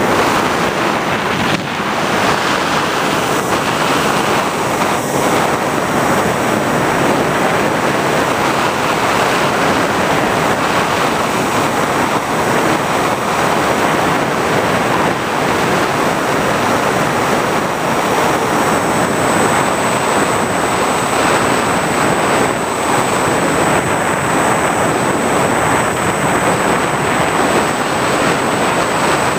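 Steady rush of airflow over the onboard camera's microphone of an FPV model aircraft in flight. A thin high whine jumps higher a little past halfway.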